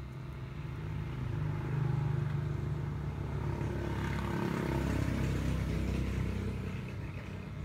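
A motor vehicle's engine passing by, its low hum swelling over the first two seconds, holding, then fading near the end.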